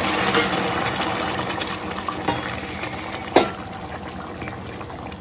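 Hot water poured from a steel saucepan into a steel wok of fried masala paste, a watery rush that tapers off over the first few seconds, then a wooden spatula stirring the thin gravy with two sharp knocks against the pan, the louder one about three and a half seconds in.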